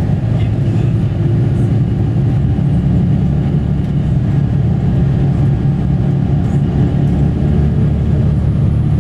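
Steady low engine rumble, like a large engine running at an even speed, with no change in pitch or level.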